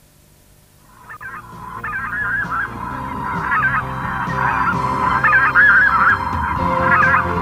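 A flock of geese honking, many calls overlapping, fading in about a second in and growing louder.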